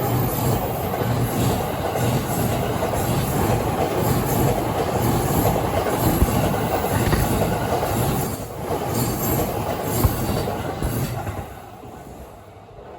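Train passing at a level crossing: a steady rush of wheel-on-rail noise that fades away from about eleven seconds in as the train moves off.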